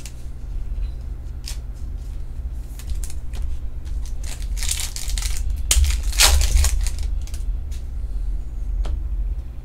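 Stiff Topps Chrome Formula 1 trading cards being handled: cards sliding and rustling against each other with small clicks, and two longer rustling passes about halfway through. A steady low hum runs underneath.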